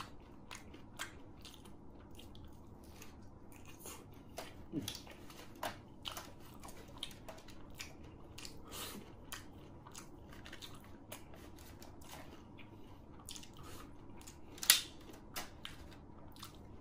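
A person chewing and biting crispy battered fried mushrooms: irregular small crunches and mouth clicks, with one louder sharp crack near the end.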